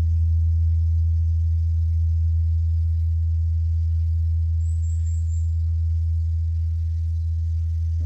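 Large Korean Buddhist temple bell (beomjong) humming on after a strike: one deep, steady tone slowly dying away. A few quick high chirps come about five seconds in.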